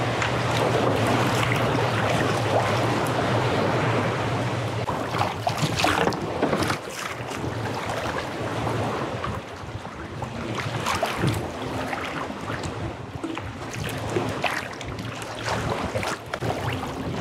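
Choppy lake water splashing and slapping around a kayak, with paddle splashes and wind buffeting the microphone. It is louder for the first six seconds or so, then settles.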